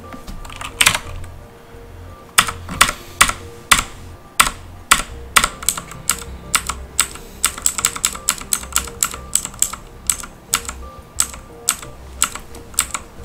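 Computer keyboard keys clicking one press at a time, sparse at first and then about two to three presses a second from a couple of seconds in, paging down through a long listing in a terminal.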